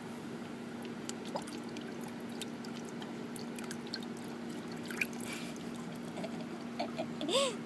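Water in a plastic bucket lapping, dripping and splashing in small scattered clicks as a Doberman noses and mouths at floating water balloons. A short squeak rises and falls near the end, over a steady low hum.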